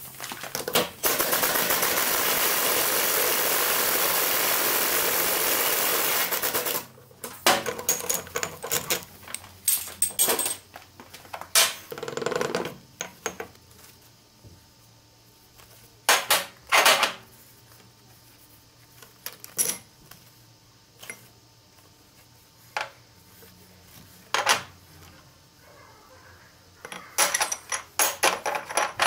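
Workshop sounds from stripping a ZF 16S 151 truck gearbox. A loud, steady, rushing mechanical noise runs from about a second in for some six seconds, then steel parts and tools clink and knock at intervals.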